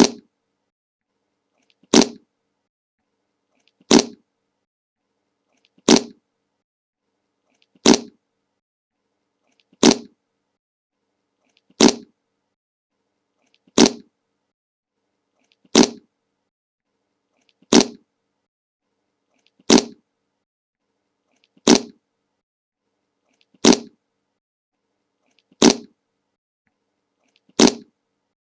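Le Monke meme fart sound effect looped: the same short, sharp fart repeats about every two seconds, fifteen times, with silence between.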